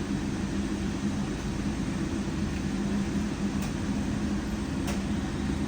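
A steady low mechanical hum, with two faint clicks in the second half.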